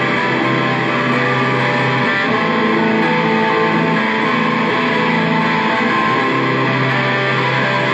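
Electric bass guitar played through a chain of effects pedals: a dense, sustained wash of effected tones over long held low notes that change about every two seconds.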